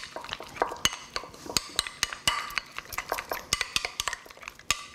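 A metal utensil stirring a thick herb sauce in a small glass bowl, clinking against the glass many times at an uneven pace.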